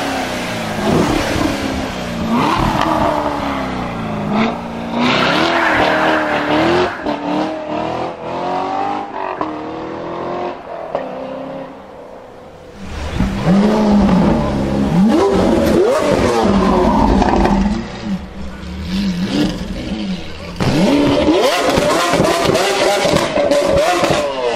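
High-performance supercar engines revving and accelerating hard past, one run after another, the pitch rising and falling with each blip and gear change. There is a quieter lull around the middle, then loud runs again, the last a Lamborghini's engine rising sharply as it pulls away.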